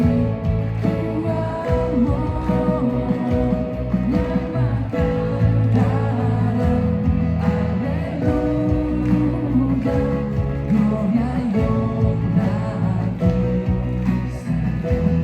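Live worship band playing a song, with drums keeping a steady beat under bass, electric and acoustic guitars and piano, and a voice singing over them.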